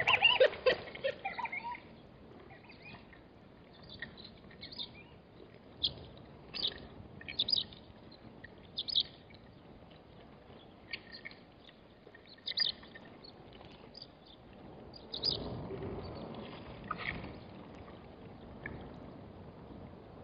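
Warthogs calling in a short burst of squeals and grunts in the first couple of seconds, then scattered short high bird chirps at irregular intervals. About three quarters of the way through, a brief swell of rushing noise.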